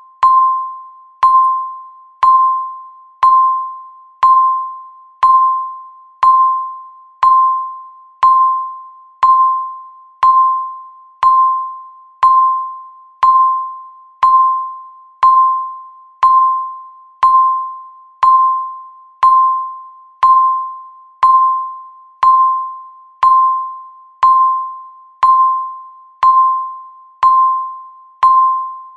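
Electronic countdown-timer beep marking each second: a short click and then a single mid-pitched tone that fades, repeating evenly once a second.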